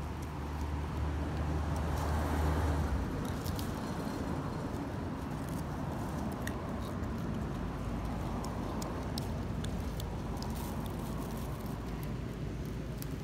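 Background vehicle noise: a steady low hum that swells about two seconds in, then an even low rumble, with light scattered clicks and rustles.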